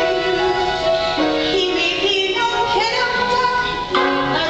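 Female voices singing a stage-musical number with accompaniment, holding sustained notes that shift in pitch about every second.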